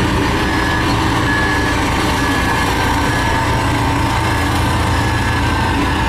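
Cat single-drum road roller's diesel engine running steadily as it works across a gravel bed, with a faint repeating electronic beep over it.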